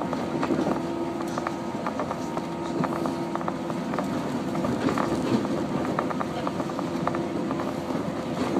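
115 series electric train running, heard from inside the car: steady running noise with a hum and many small rattles and clicks.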